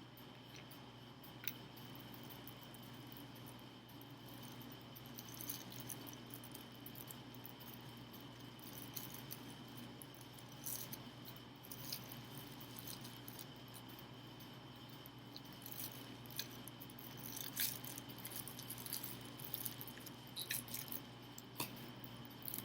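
Faint scattered clicks and light rattles of switch plate covers being handled, more frequent near the end, over a steady low electrical hum and a faint high whine.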